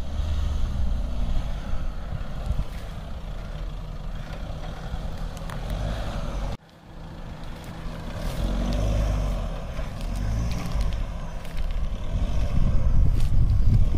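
Mahindra Thar 4x4's engine running under load as it crawls over sandy off-road mounds. The sound drops out suddenly a little past halfway at an edit cut, then builds again and is loudest near the end as the vehicle powers up the slope.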